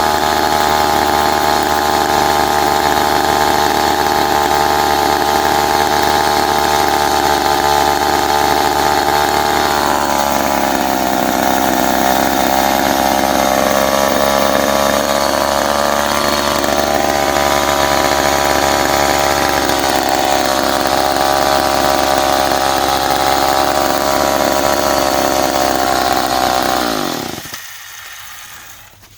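McCulloch 10-10A two-stroke chainsaw running steadily, then about ten seconds in its pitch drops and wavers as it labours in a cut through dry white oak. Near the end the engine dies away and stops.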